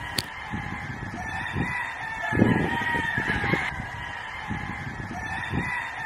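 Several gamefowl roosters crowing, their crows overlapping, with a louder crow about two and a half seconds in that lasts a little over a second.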